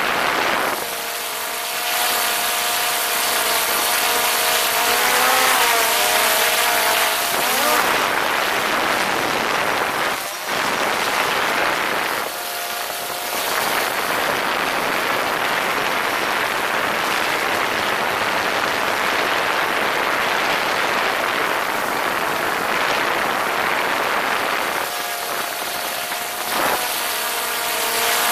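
Small quadcopter drone's motors and propellers whining in flight, the pitch wavering and gliding as the motor speeds change. A rushing noise covers the whine for much of the middle.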